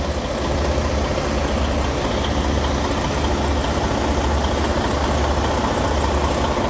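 Diesel engine of a parked semi truck idling, a steady low rumble.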